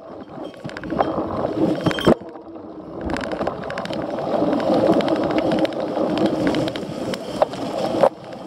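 Cyclocross bike ridden hard over rough off-road ground, heard from a camera mounted on the bike: continuous tyre and frame rattle and rumble, with sharp knocks from bumps a few times.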